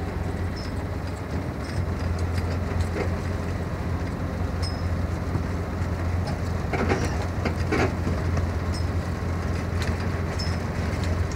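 Steady low engine drone and road rumble heard from inside the cab of a large vehicle driving on a dirt road, with small rattles from the body and loose items. Two brief louder rattles come about seven and eight seconds in.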